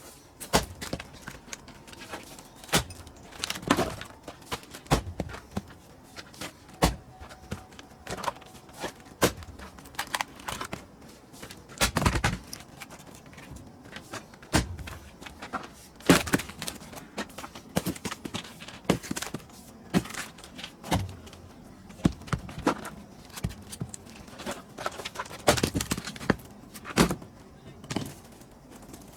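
Pine firewood being split and handled: a string of irregular wooden knocks and thuds, the loudest about twelve and sixteen seconds in.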